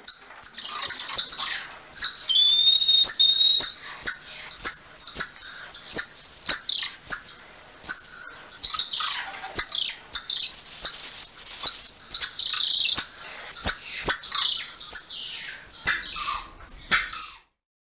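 Golden lion tamarins calling: a rapid string of high, sharp chirps and squeaks, with a held whistle about two seconds in and another about ten seconds in.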